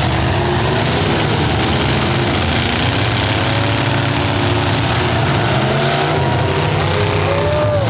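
Demolition derby car engines running and revving together over a steady low rumble, their pitch rising and falling.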